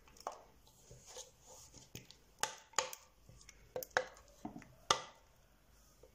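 Irregular light taps and clicks of a silicone spatula against a glass baking dish and a bowl as thick custard is spread and scraped out, about eight in all, stopping about five seconds in.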